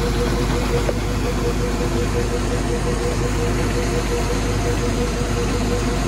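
Bulk feed tanker truck's engine running steadily, a continuous drone with a steady hum that does not change in pitch.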